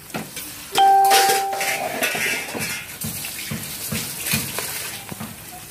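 Squid pieces deep-frying in a wok of hot oil, the oil sizzling steadily as metal tongs turn them. About a second in, a steady tone sounds for about a second.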